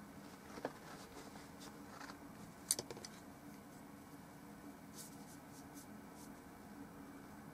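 Faint scratching and light ticks of a brush working oil paint on a palette, with a small click about a second in and a sharper click just under three seconds in, over a low steady hum.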